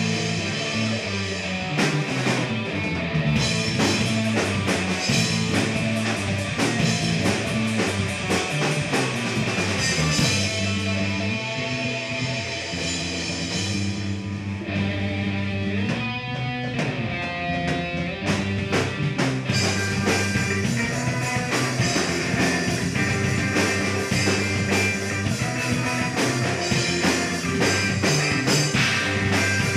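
A live rock trio playing: electric bass guitar, electric guitar and drum kit together, continuous and full.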